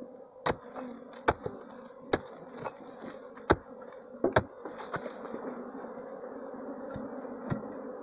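Hatchet blows knocking into a hard clay termite mound, a run of sharp strikes mostly in the first five seconds and two more near the end, over the steady buzzing of the bee swarm nesting inside it.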